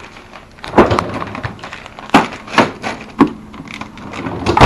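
Bottom freezer drawer pulled open and frozen packages shifted in its basket: about five sharp clacks and knocks at uneven intervals, the loudest about a second in and near the end.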